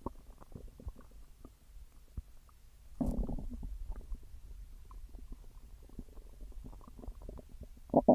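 Stomach growling: low rumbling and gurgling dotted with small pops and squelches. A louder gurgling growl comes about three seconds in, and another starts near the end.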